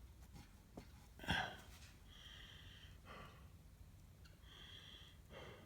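A man breathing heavily while he works: a sharp gasping breath about a second in, then several slower, slightly wheezy breaths.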